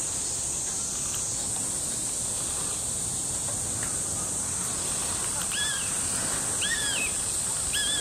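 Three short arched bird calls about a second apart in the second half, each rising and falling in pitch, over a steady high hiss.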